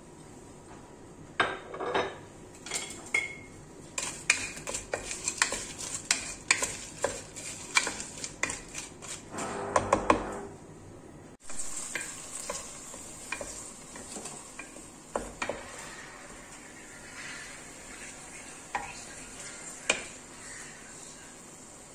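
Wooden spoon stirring diced carrot, onion and celery in a terracotta pot, with frequent knocks and scrapes against the clay. About halfway through, the vegetables sizzle steadily as they fry in the oil, with only occasional spoon taps.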